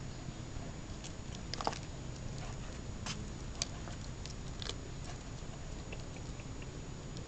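Metal forceps prying and scraping barnacles off a small sea turtle's shell: irregular sharp clicks and crunches, the strongest about one and a half and three and a half seconds in.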